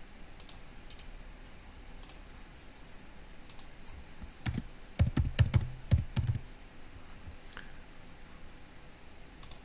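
Typing on a computer keyboard: a quick run of keystrokes a little past halfway, with a few scattered single clicks before and after.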